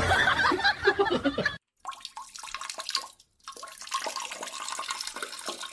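A loud burst of vocal sound in the first second and a half. After a short break, water runs in a toilet bowl.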